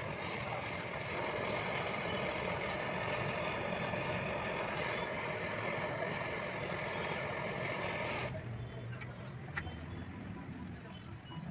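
Twin-tip gas brazing torch flame burning with a steady hiss while a copper pipe joint on an AC condenser coil is brazed. The flame cuts off suddenly about eight seconds in, followed by a few faint clicks.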